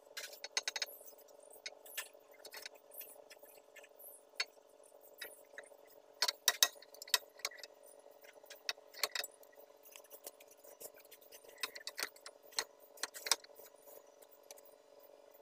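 Scattered metal clinks and knocks of hand tools and the oil pan being worked loose from under a Perkins four-cylinder diesel engine, the loudest bunch about six seconds in, over a steady hum.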